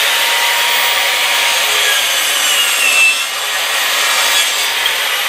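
Electric drop saw (mitre saw) running and cutting through a piece of wood, loud and steady. The motor's high whine sags once midway through the cut and climbs back.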